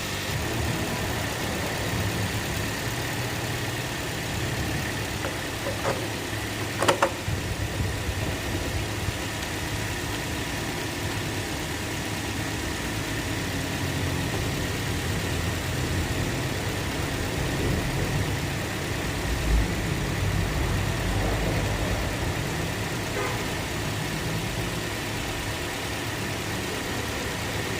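2013 Toyota Yaris four-cylinder engine idling steadily, just after its VVT-i solenoid, throttle body and intake manifold were cleaned to cure a rough idle. A brief knock sounds about seven seconds in.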